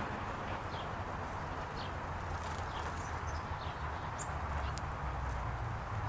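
Small songbirds giving short, high chirps, a few each second, over a steady low rumble and hiss of outdoor background noise.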